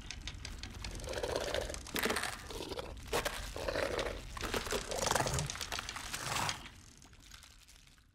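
Crunching, crackling sound effects with dense clicks, dying away about six and a half seconds in.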